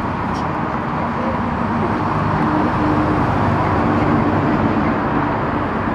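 Distant Airbus A350-900 jet engines, Rolls-Royce Trent XWB turbofans, heard as a steady rumble and hiss while the airliner rolls along the runway.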